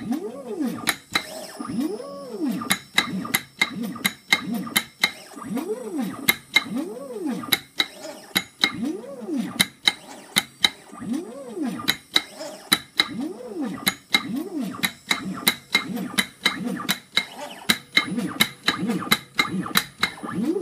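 Home-built organ paper-roll punching machine at work: the punch clicks sharply several times a second as it perforates the roll, while the stepper motor feeding the paper whines, rising and falling in pitch about once a second as it speeds up and slows down.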